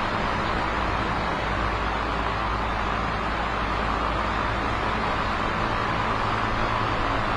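Electric fan running steadily: an even rush of moving air with a low motor hum beneath it.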